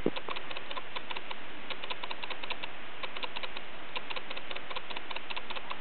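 Footsteps crunching through snow, each step a cluster of small crackles, about one a second.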